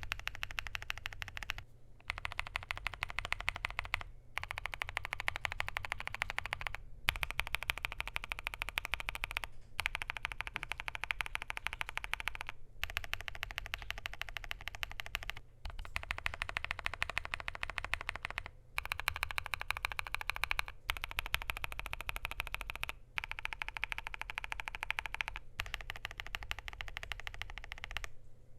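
Fast typing on a KBDfans Tofu65 2.0 mechanical keyboard, with a polycarbonate plate, case foam, PBT keycaps and lubed, filmed WuqueStudio WS Morandi switches. Dense runs of keystrokes last two to three seconds each, with short pauses between them, and the typing stops near the end.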